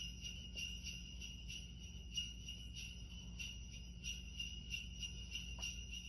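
Sleigh bells jingling, shaken in a steady, even rhythm.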